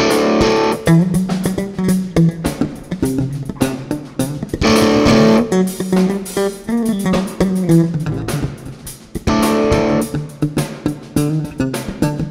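Jazz and world-music band with an electric bass and an electric guitar: the bass plays a moving melodic line while full chords ring out three times, every four to five seconds.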